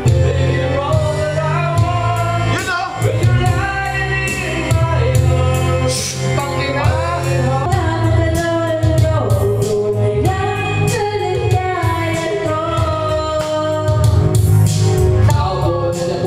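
Music with singing: a wavering sung melody over a loud backing track with a heavy bass line.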